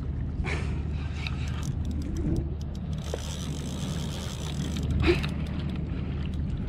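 Large spinning fishing reel whirring with fine rapid ticks for a second or two in the middle as line is wound in on a hooked fish, over a steady low rumble. Two short swishes come near the start and about five seconds in.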